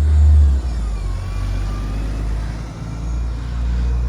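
Bus engine running close by with a deep rumble that eases slightly about half a second in, a faint wavering whine above it.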